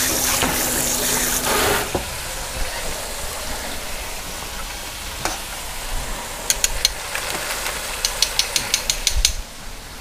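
Strips of flour-battered bacon deep-frying in the hot oil of an electric deep fryer, the oil sizzling steadily. A louder rushing noise with a low hum stops about two seconds in. Metal tongs click a few times around two-thirds through and then rapidly several times near the end.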